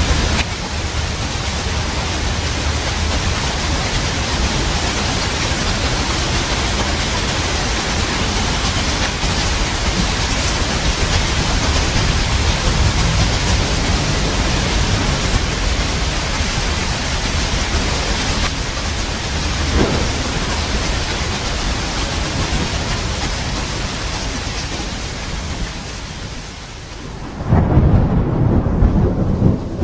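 Steady heavy rain hissing over a low thunder rumble. About 27 seconds in, the rain hiss drops away and a loud, deep thunder rumble sets in suddenly.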